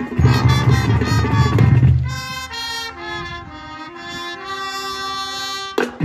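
High school marching band playing: about two seconds of full band with drums, then the brass and woodwinds hold sustained chords without percussion, and the drums and full band come back in with a hit near the end.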